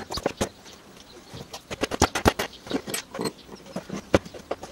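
Small metal parts of a painted bench vise clicking and knocking irregularly as they are handled and fitted together: the clamp screw with its T-handle, the jaw pieces and small pins. The knocks come thickest around the middle.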